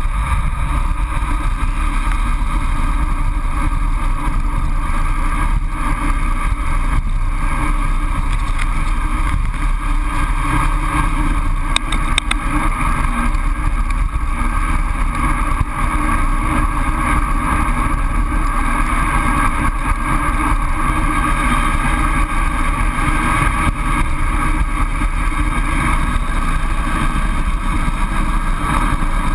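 Steady rush of wind and tyre noise from a road bike descending fast on asphalt, heard through a handlebar-mounted GoPro in its housing.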